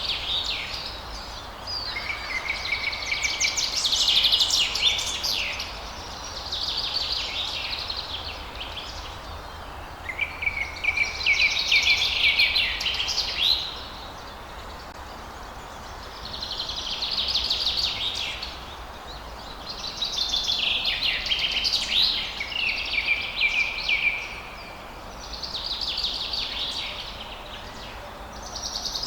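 Songbird singing a run of high, rapid trilled phrases, each two to four seconds long, with short pauses between them, over a faint steady background hiss.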